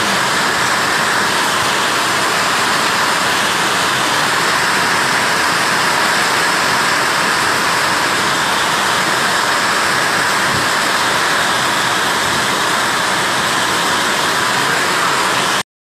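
Heavy rain pouring down, a loud steady hiss that cuts off abruptly right at the end.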